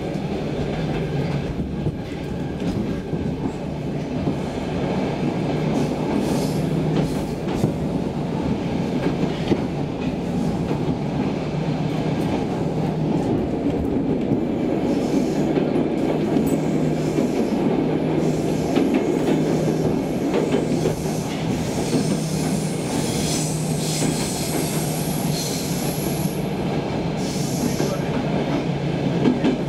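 Stockholm Metro C6 subway train heard from inside the carriage as it runs from a station into a tunnel: a steady rumble of wheels on the rails with scattered clicks. From about halfway, high-pitched wheel squeal comes and goes.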